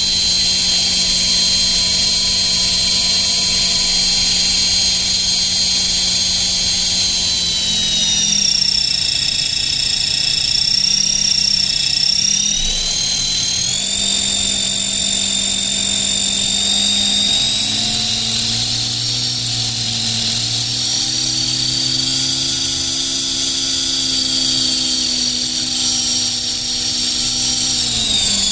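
Align T-Rex 450 Sport electric RC helicopter running, its motor and main-gear drive whining loudly, the pitch dipping and rising several times as the rotor speed changes. It carries the strange noise from the main gear that the owner is trying to track down.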